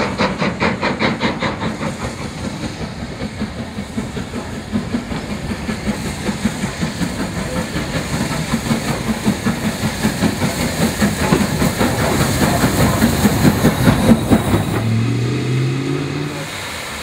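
Two steam locomotives, led by LMS Stanier 8F No. 48151, working towards the listener: rhythmic exhaust chuffs, about four a second, over a hiss of steam, growing louder as they draw near. Near the end this gives way to a steady low hum.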